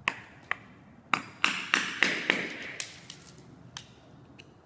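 Hammer striking a chisel driven into glued-down hardwood flooring to chip the pieces out: about nine sharp, ringing taps at an uneven pace, coming quickest in the middle, with a pause before one last tap near the end.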